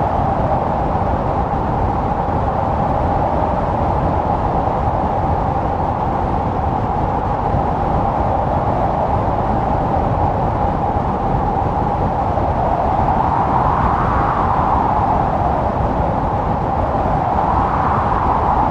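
Blizzard wind howling steadily. Its howl swells and rises in pitch as a gust about two-thirds of the way through, and again near the end.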